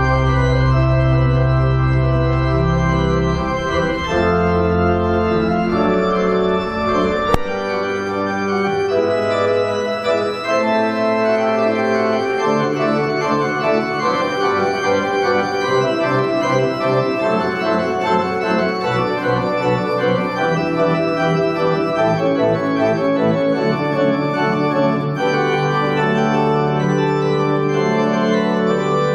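Organ playing slow, sustained chords, with deep pedal notes under them for the first seven seconds or so.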